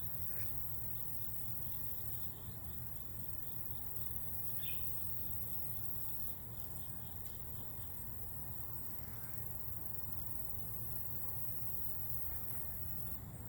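Quiet steady background: a constant low hum and hiss, with faint high chirps or ticks at even intervals.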